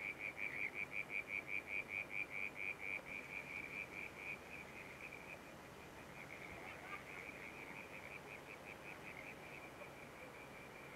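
An animal calling at dusk: a rapid, even run of high chirps, about five a second. It is clearest over the first few seconds, then fainter but still going.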